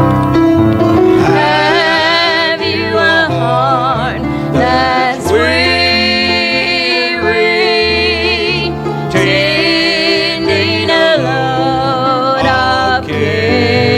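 Gospel song: a solo voice singing long phrases with vibrato over piano accompaniment.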